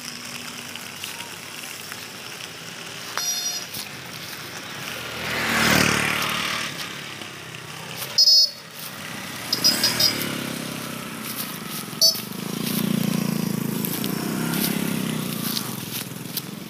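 Small electric motor and plastic tyres of a homemade cardboard RC truck running over rough asphalt, loudest about six seconds in, with several short high chirps between.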